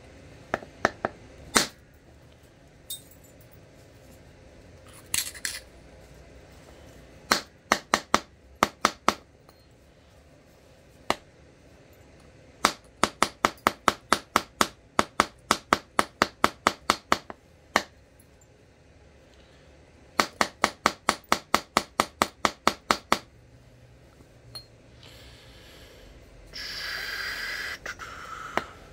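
Flint being knapped with antler tools: sharp, glassy clicks of stone being struck, a few scattered at first, then two quick runs of about four clicks a second. Near the end comes a scraping noise lasting about two seconds.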